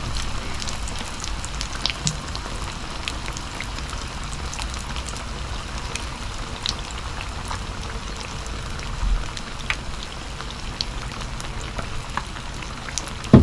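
Battered bream fillets deep-frying in hot oil, a steady sizzle with scattered pops and crackles. The oil is probably a little too hot. A sharp, loud knock comes at the very end.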